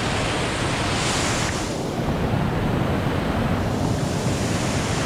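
A strong waterfall rushing steadily, with wind rumbling on the microphone.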